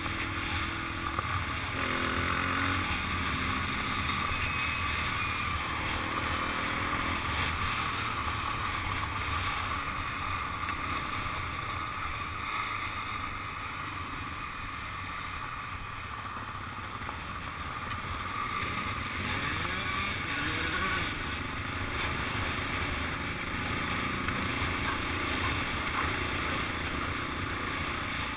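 Dirt bike engine running at low speed over a gravel trail, its pitch rising and falling a little with the throttle.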